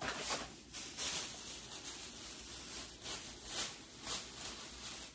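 A plastic bag rustling and crinkling as it is handled and rummaged through, in irregular swishes with a few louder crackles.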